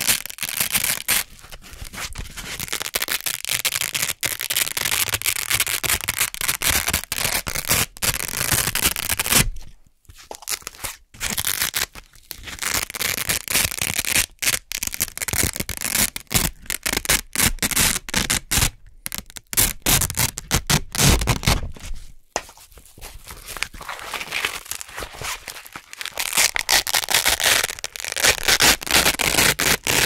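Hook-and-loop (Velcro) fastener being peeled apart and pressed back, held close to the microphone: a super crunchy crackling tear as the hook circle pulls off the loop fabric, repeated over and over with a few brief pauses.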